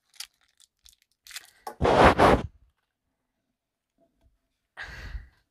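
Clear plastic wrapper being torn and crinkled off a Bakugan toy by hand: small crackles, then a loud double crinkle about two seconds in and another near the end.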